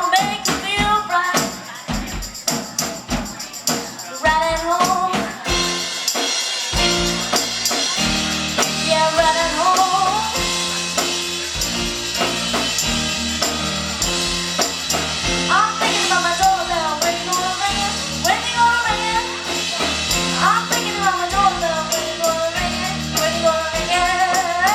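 A song with a sung melody over a tambourine beat. About six seconds in, bass and fuller backing come in.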